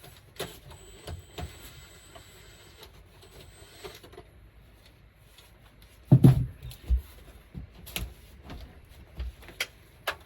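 Scattered clicks and knocks of hands working with parts and tools, with one loud, low thump about six seconds in.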